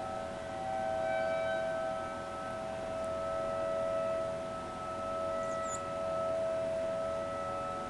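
Distant siren sounding a steady, unbroken tone, its loudness slowly swelling and fading about every two and a half seconds.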